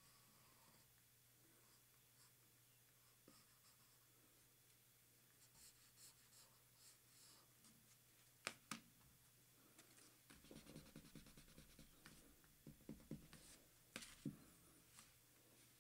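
Faint pencil scratching on paper during sketching, in short scattered strokes, with a few sharp clicks of the pencil or hand against the paper and table.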